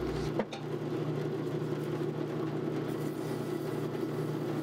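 Wood lathe running with a steady motor hum, the spindle and chuck turning a small workpiece; a single short tick about half a second in.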